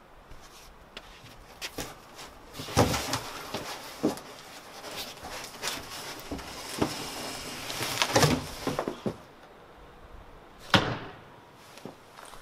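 A large cardboard box being climbed into: cardboard rustling, creasing and bumping, with irregular knocks. A sharp slap about three-quarters of the way through, the loudest sound, fits a box flap being pulled shut.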